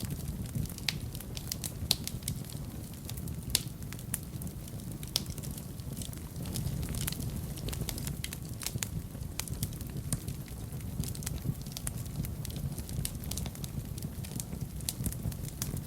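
Wood fire burning in a fireplace: a steady low rumble of the flames with frequent sharp, irregular crackles and pops.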